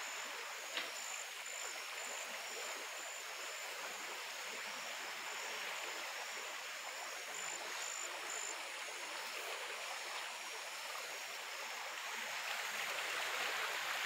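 Steady rushing of flowing river water.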